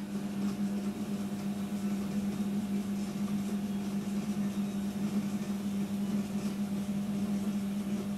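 Electric potter's wheel motor running with a steady hum while a tall clay vase is shaped on it.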